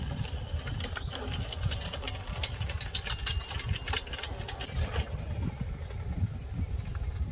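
A homemade remote-controlled mower chassis, with cultivator wheels, DC drive motors and a small engine, runs with a steady low mechanical rumble as it drives across grass. Many sharp clicks and rattles come through in the middle of the run.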